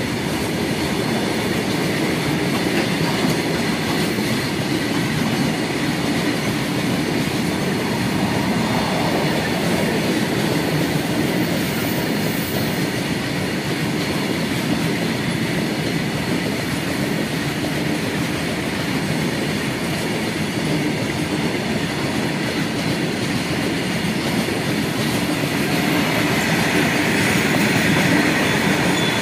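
Freight train of open-top wagons rolling past a level crossing: steady wheel and rail noise with the clickety-clack of wheels over rail joints, growing a little louder near the end as the last wagons pass.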